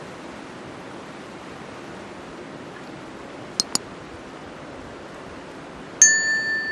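Steady rush of river water, broken by two quick sharp clicks about three and a half seconds in. Near the end a loud bell-like ding starts and rings on, fading slowly.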